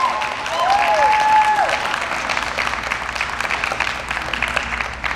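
Audience applauding, the clapping slowly thinning and growing quieter toward the end.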